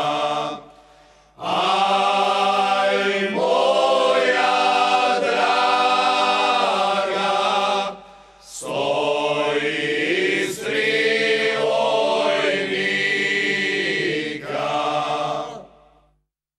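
Male folk group singing baje, the traditional Slavonian style, a cappella. They sing two long, drawn-out phrases with sliding pitches, with a short breath at the start and another about halfway. The singing stops about a second before the end.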